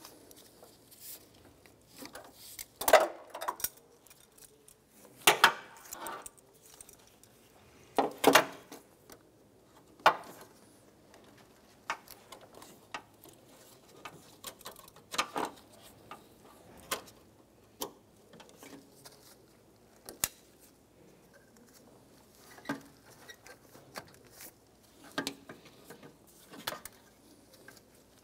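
Irregular clicks, clinks and knocks of hand work while fitting an upper radiator hose, its clamp and plastic fittings. A few louder knocks come in the first several seconds, then lighter scattered ticks.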